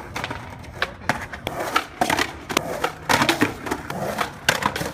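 Skateboard clacking and knocking on wet pavement: irregular sharp clicks and knocks, several a second.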